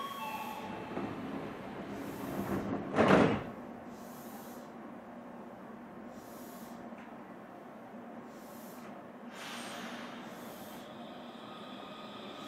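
Sliding passenger doors of an Odakyu electric train closing at the platform. The rush of the doors ends in one loud slam about three seconds in. A short hiss follows around nine and a half seconds in.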